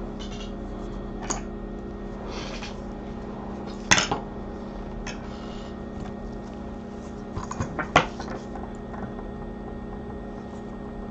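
Small metal tools clicking and scraping lightly at a microsoldering bench, a few separate knocks with the loudest about four seconds in and another near eight seconds, over a steady electrical hum.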